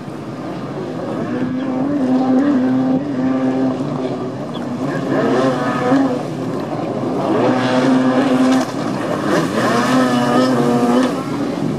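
Racing jet skis' engines revving hard, the pitch rising and falling as the riders throttle round the course buoys. A hiss of spray runs under it. It grows louder about two seconds in.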